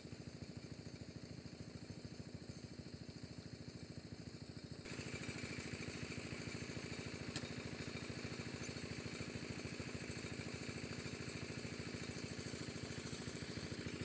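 A small engine running steadily at an even speed, getting louder about five seconds in.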